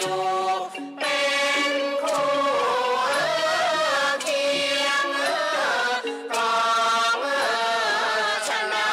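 Thai classical music accompanying a khon masked dance: an ornamented melodic line sliding and wavering in pitch over a steady pulsing accompaniment, with brief breaks between phrases.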